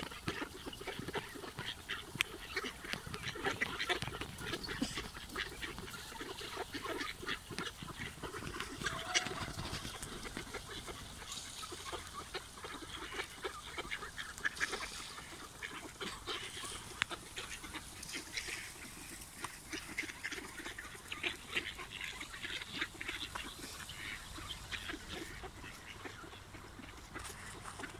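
A large flock of mallards quacking and calling, with many short overlapping calls.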